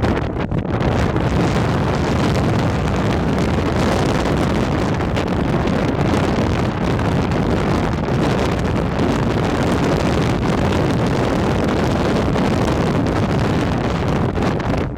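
Strong gusting wind carrying sand and dust, buffeting the microphone with a loud, steady rush.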